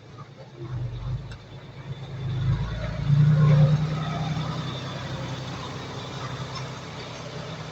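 Diesel engine of heavy earthmoving equipment running, swelling under load about two to three seconds in and then easing back to a steady run.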